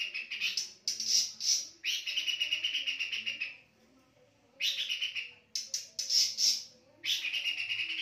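Caged pelanduk semak, a babbler, singing vigorously: fast, even, rattling trills of one to two seconds, broken up by a few quick separate notes and repeated after short pauses.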